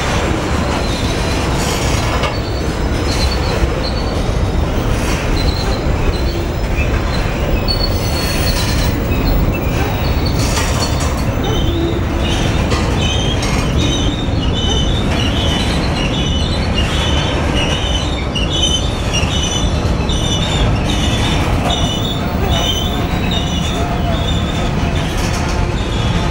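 Freight train of covered hoppers and tank cars rolling past a grade crossing: a steady loud rumble and rattle of steel wheels on rail. From about halfway through, high-pitched tones come and go over it, the wheel flanges squealing against the rail.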